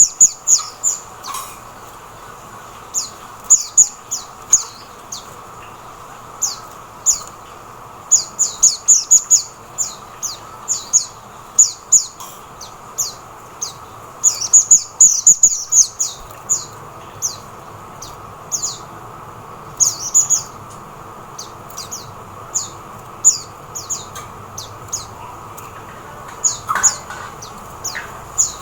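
Oriental white-eye (mata puteh) calling: short, high, downward-slurred chirps, some single and some in quick runs of several notes, repeated on and off throughout.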